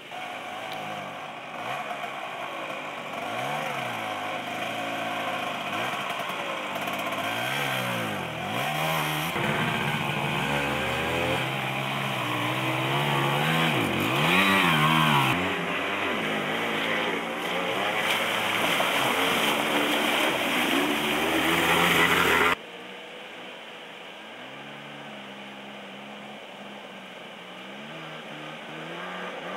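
Small moped engines revving up and down over and over, their pitch rising and falling as they labour through deep mud and water. About two-thirds of the way through the sound cuts off abruptly, and fainter engines keep running.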